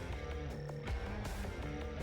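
Background music: a guitar-led track with a steady beat and a moving bass line.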